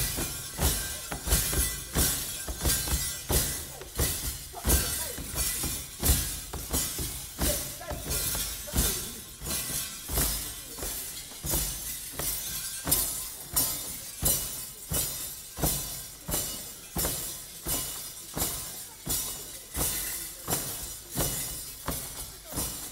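Wodaabe Geerewol dance music: a steady beat of sharp strikes, about three every two seconds, getting slightly softer toward the end.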